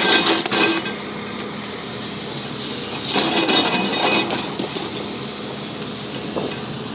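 Bulldozer engine running under load with a steady hum. Rock cracks and grinds under the blade in a burst at the start and again from about three to four and a half seconds in.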